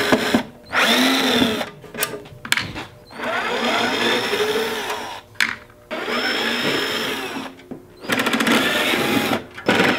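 Cordless drill/driver running in several bursts of a second or two each, its motor whine rising and falling with the trigger, as it backs the screws out of the metal top cover of a QSC RMX 5050a power amplifier.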